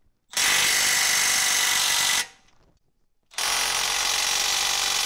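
Impact wrench running in two bursts of about two seconds each, a second apart, driving the front brake caliper's mounting bolts home.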